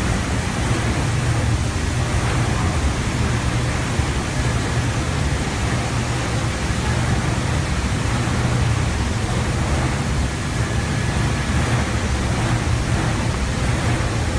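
Carpet washing machine running: a steady, loud noise of machinery and water with a low hum underneath, unchanging throughout.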